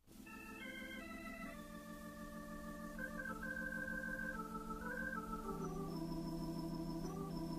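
Organ playing held chords and a slow, moving melody line in the opening bars of a slow electric blues recording, fading in from silence at the start.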